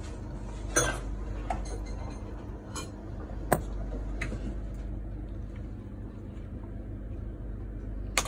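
A few sharp clicks and light knocks, the sharpest about three and a half seconds in, as a gold bangle is handled and set down on a wooden workbench, over a low steady hum.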